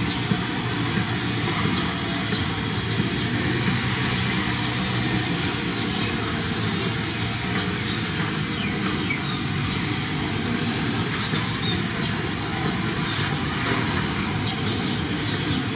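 Steady low rumbling background noise with faint clicks and rustles scattered through it.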